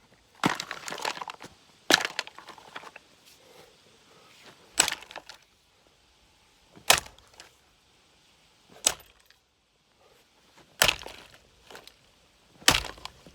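Seven sharp blows, about two seconds apart, striking a Homelite 45cc chainsaw, with cracking and breaking of its housing; the first blow rattles on for about a second.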